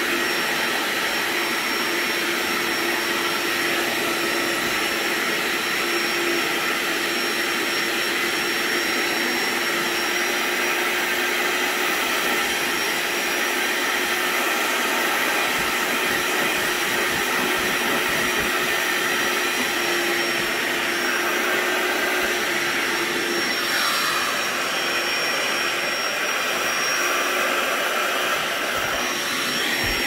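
Hoover ONEPWR Spotless Go cordless spot cleaner's suction motor running steadily while extracting a stain from fabric. There is a brief change in tone about two-thirds of the way through and again near the end.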